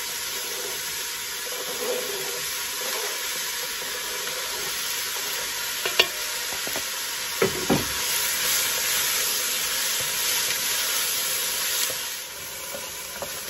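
Diced celery and red pepper sizzling as they fry with onions in olive oil in an enamelled cast-iron casserole, stirred with a wooden spoon. A sharp click about six seconds in and a knock a second and a half later, as knife and spoon strike the pot.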